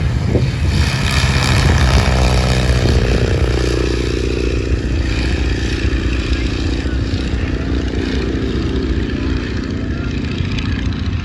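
Boeing Stearman biplane's radial engine flying past, its pitch falling as it goes by about two seconds in, then running on more quietly as it moves away.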